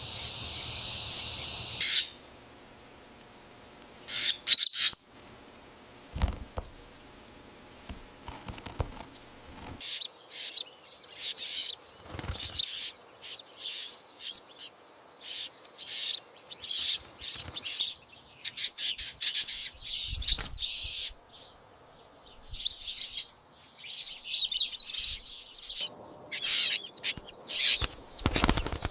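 Young goldfinch chirping: bursts of rapid, high, thin chirps that repeat with short pauses and grow busier as it goes on. A steady high hiss cuts off about two seconds in.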